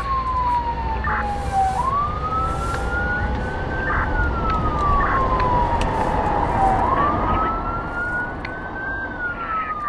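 Police siren wailing, its pitch rising slowly for about two seconds and falling for about three, over and over, over a low rumble.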